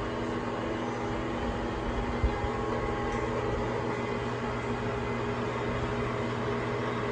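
Sharp 1440 gearhead engine lathe running steadily under no load, its motor and headstock gears giving a steady hum of several tones, with one brief knock about two seconds in.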